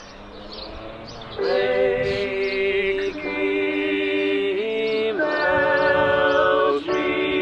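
A song with sung voice holding long notes that step from one pitch to the next. It comes in much louder about a second and a half in, over a quieter musical opening.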